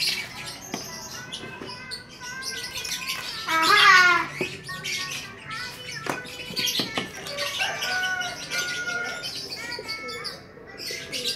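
Birds chirping in short calls throughout, with one louder cry falling in pitch about four seconds in.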